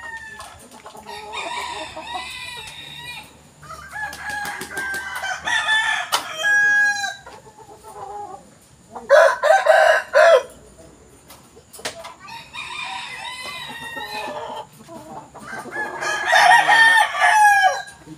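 Several caged Boston Roundhead gamecocks crowing one after another, with clucking in between; the loudest crow comes a little past halfway. A quick run of sharp clicks sounds about six seconds in.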